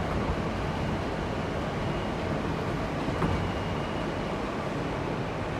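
Interior running noise of an R160 subway car: a steady low rumble of the train on the rails, with a faint whine in the middle and a single light click.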